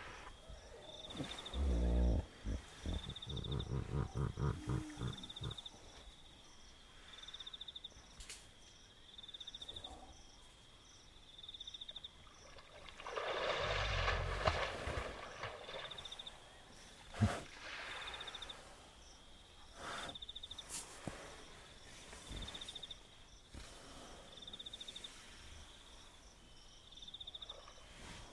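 Wild hippopotamus calling: a rapid series of pulsed grunts about two seconds in, then a second, broader bellowing call near the middle. Insects chirp in short high trills repeating every second or two throughout.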